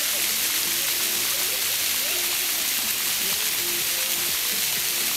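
Steady hiss of a pavement fountain's water jets spraying up and splashing back onto wet paving stones.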